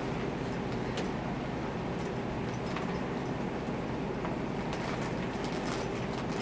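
Steady low room hum with a faint held tone, and scattered faint clicks and clinks as a cat rolls and bites at a fabric catnip toy on the floor.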